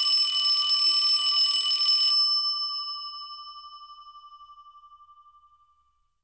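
A bell sound effect rings rapidly for about two seconds, then rings out and fades away over the next four seconds.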